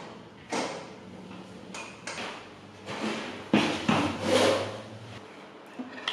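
Bags and kiteboarding gear being handled and set down on a hard floor: a string of rustles, knocks and scrapes about a second apart, the loudest about halfway through.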